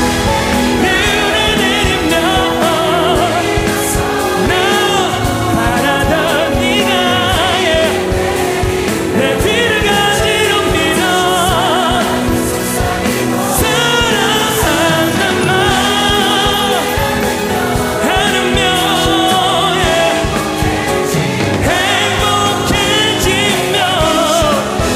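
Live pop ballad: a male lead vocal soaring over a choir, backed by a string orchestra with cellos and double bass, timpani, drums and a band, loud and continuous.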